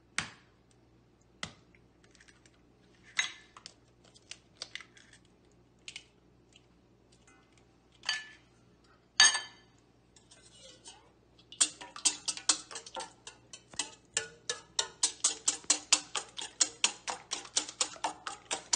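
A few separate taps and clicks of an egg being cracked and its shell handled over a stainless steel mixing bowl, then, from about two-thirds of the way in, a wire whisk beating eggs in the steel bowl: rapid, even clicks of metal on metal about five a second.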